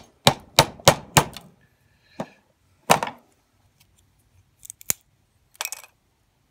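Hammer blows on a small modern Model T coil capacitor's red case set on a steel anvil, cracking the case open: four quick strikes about a third of a second apart, then two single knocks about a second apart. Near the end come a few light clicks as the broken case is pulled apart by hand.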